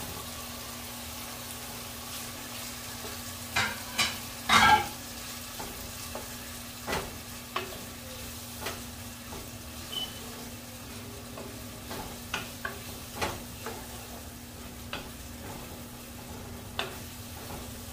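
Beef and freshly added chopped tomato sizzling in a nonstick pot while a wooden spoon stirs them, knocking and scraping against the pot, as the tomato is fried down with the meat. The loudest knocks come about four seconds in, followed by lighter taps at irregular intervals.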